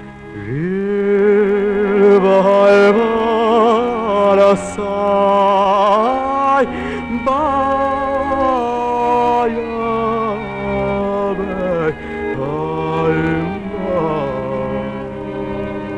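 A man singing a Lak folk song, a long ornamented line with wide vibrato that slides up into its first note, over a sustained instrumental drone.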